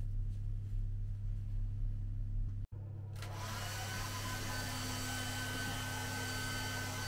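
A steady low hum, then, after a brief cut about three seconds in, a handheld hair dryer running steadily: a blowing rush of air with a steady whine over it, used to dry long wet hair.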